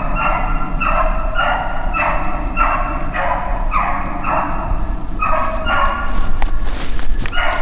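A beagle baying steadily on the track of a freshly jumped rabbit, about two short cries a second. The cries break off near the end into a run of sharp crunching steps, and one more cry follows.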